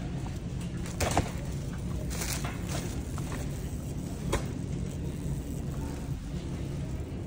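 Wire shopping cart rolling along a hard store floor: a steady low rumble from the wheels, with the metal basket and the goods in it rattling and knocking a few times, sharpest about a second in and again around four seconds.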